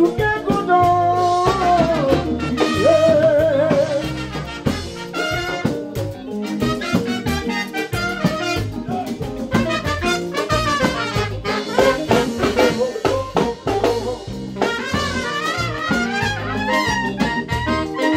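Live band playing dance music: a man sings over the band in the first few seconds, then a horn section of trumpets and tenor saxophone plays with the drums.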